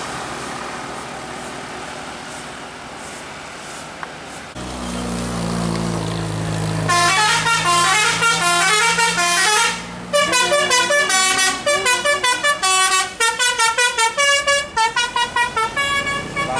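Road traffic noise, then a tour bus's engine drone as it climbs, and from about seven seconds in its multi-tone "telolet" horn playing a melody of quick stepped notes, pausing briefly near ten seconds before a run of rapid, stuttering short notes.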